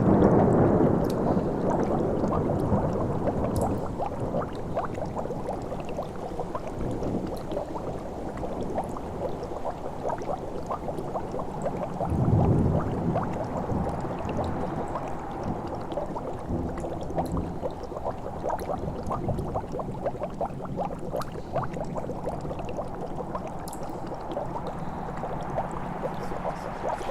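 Witch's-house sound-effect ambience: a steady bubbling and gurgling of liquid, with low rumbles swelling at the start and again about twelve seconds in.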